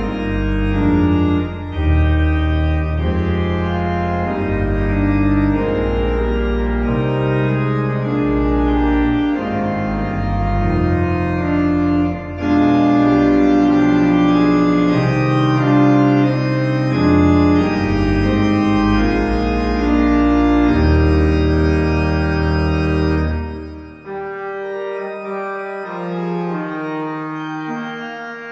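Organ playing a hymn tune in full held chords over a deep pedal bass, with no singing. About 23 seconds in the bass drops out and the playing goes on more quietly.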